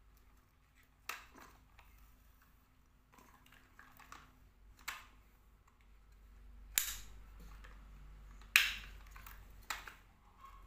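Sharp plastic clacks and knocks from a toy excavator truck being handled and set down on a tile floor, about five separate hits, the two loudest in the second half.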